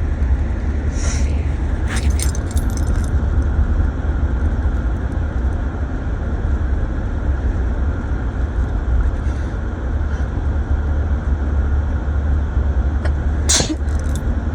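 Steady road and engine rumble inside a moving car's cabin, deep and unbroken. A few brief clicks or rattles come through, a cluster about two seconds in and a sharper one near the end.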